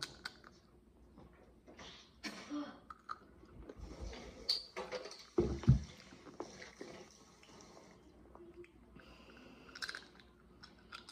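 Quiet chewing of chips and handling of a plastic water bottle, with a couple of low thumps about five and a half seconds in as the bottle is set down on the wooden table.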